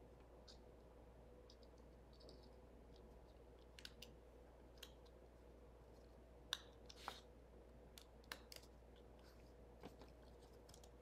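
Quiet room hum with a handful of faint, scattered clicks and taps from about four seconds in: small paper and cardstock craft pieces being peeled, handled and pressed into place.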